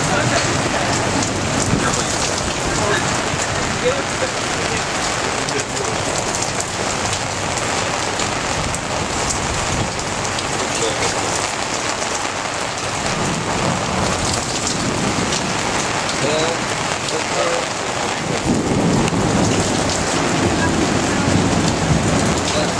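Rain pouring steadily in a thunderstorm, with low rumbles of thunder swelling up about halfway through and again in the last few seconds.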